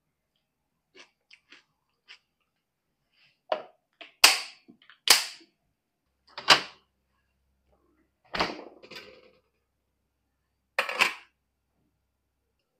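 Handling a glass food container: a few light clinks of a fork against the glass, then about six sharp clacks and knocks of glass and plastic, spaced a second or more apart, as the lid is fitted onto the container.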